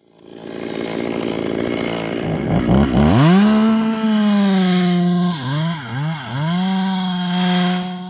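Stihl top-handle two-stroke chainsaw revving up to full throttle about three seconds in, then holding a steady high-pitched scream. Its pitch dips sharply three times in quick succession a little past halfway.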